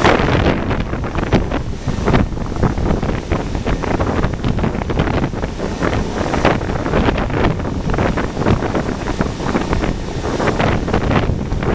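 Wind buffeting the microphone on the open deck of a moving ferry, in loud irregular gusts, over the rush of water churned along the hull.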